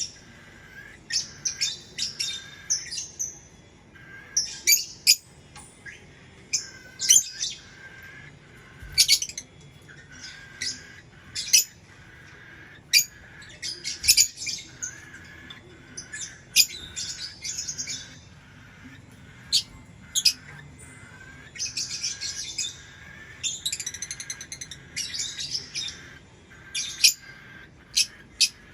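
Lovebird chirping: short, sharp, high-pitched chirps and squawks in quick clusters, with brief pauses between them.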